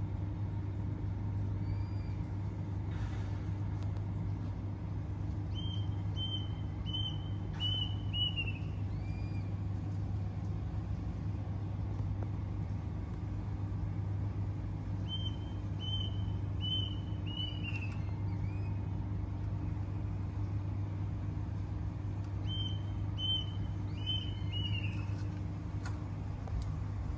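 A steady low mechanical hum, with a bird singing over it. The bird's phrase is four or five clear notes on one pitch ending in a falling slur, repeated three times about eight seconds apart.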